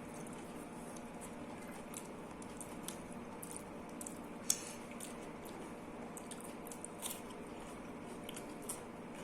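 Close-up eating sounds: wet chewing and mouth clicks of someone eating dal and rice, with a few sharper clicks scattered through, the loudest about four and a half seconds in.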